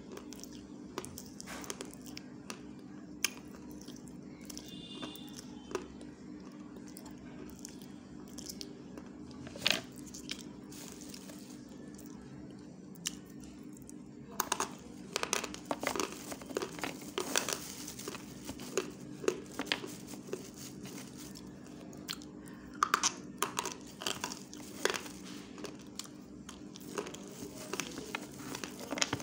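A person chewing food close to the microphone: irregular crunching and wet mouth clicks, much busier from about halfway through, over a steady low hum.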